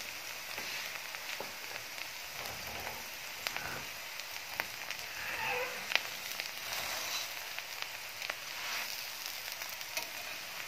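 A stuffed paratha frying in ghee on a hot flat griddle (tawa): a steady sizzle with a few sharp pops.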